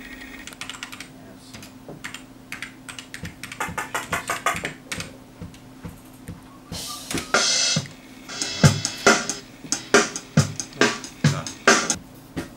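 Drum kit played in a studio: light ticking hits that grow denser, a cymbal wash about seven seconds in, then hard bass drum and snare hits, about two a second, near the end.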